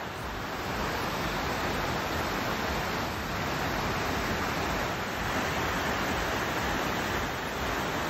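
Shallow river rushing steadily over a rocky bed.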